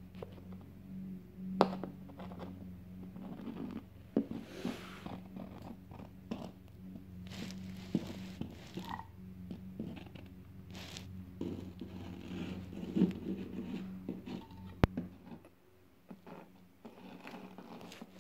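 Handling noise from plastic toy figures being moved and set down by hand: rustling and scraping with scattered clicks and knocks, over a steady low hum that cuts out about 15 seconds in.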